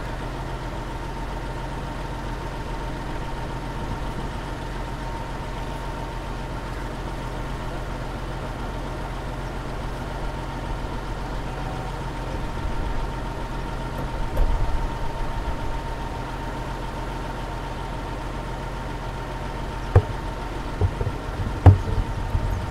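Bus engine idling steadily with an even low hum, a few sharp knocks coming near the end.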